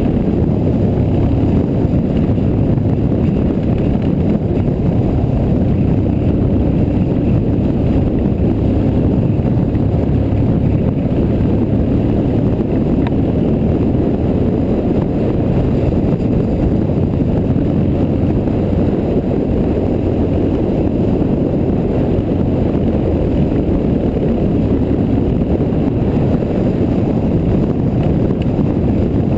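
BMW GS boxer-twin motorcycle riding at a steady cruise: a constant, deep rumble of engine and wind buffeting on the bike-mounted microphone, with no changes in speed or gear.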